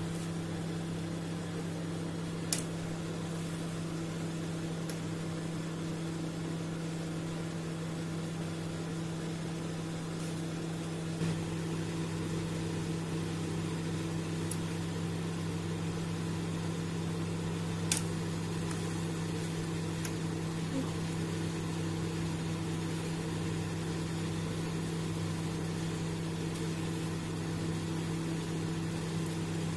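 Microwave oven running with a steady low hum, with two short sharp clicks, one a few seconds in and one just past halfway. It keeps running well past two seconds without blowing its fuse.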